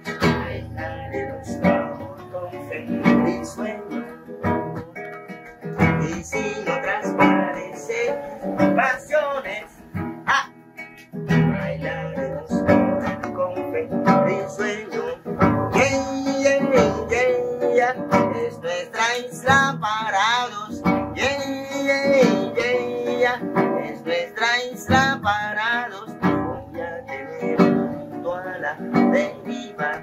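Acoustic guitar strummed in a steady rhythm with a man singing along.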